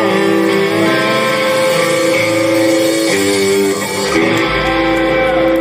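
A live rockabilly band plays a guitar-led instrumental passage between vocal lines, with long held notes over upright bass and drums.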